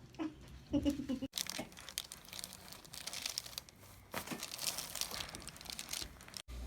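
Crinkling and rustling with many short, sharp clicks as a patient is moved and adjusted on a chiropractic table, busiest a little past halfway. The sound cuts off abruptly about a second in and again near the end.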